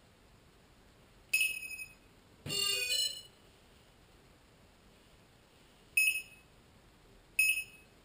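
Walkera Lotus T580 quadcopter's power-up beeps: a high beep about a second in, a quick jumble of mixed tones a second later, then two short high beeps near the end, about a second and a half apart.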